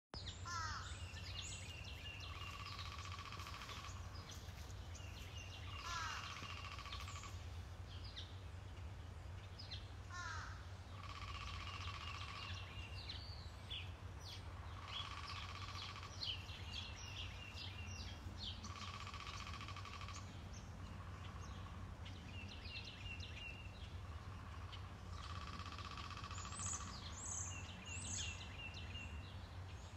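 Several songbirds singing in a backyard, with short rising chirps, trills and held whistled notes repeated every few seconds, over a steady low hum.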